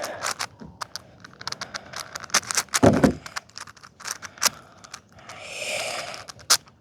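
A 6x6 Rubik's cube being twisted by hand: an irregular run of sharp plastic clicks and clacks as its layers turn, with a heavier knock about three seconds in and a longer soft rush near the end.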